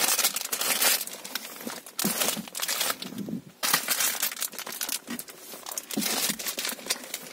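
Clear plastic protective wrap on a new car seat and its tubular seat frame crinkling and rustling under a hand, in irregular bursts with a short lull about three seconds in.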